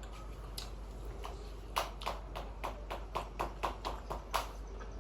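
A quick run of light clicking taps, about four a second for two or three seconds, from cutlery knocking against a dish.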